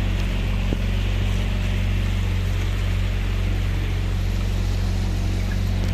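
Motorboat engine running steadily with a low drone, under a rush of wind and water.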